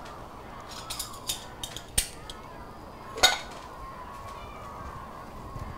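Bowls and chopsticks being set out on a dining table: a few light clicks and taps, then a louder ringing clink a little after three seconds in.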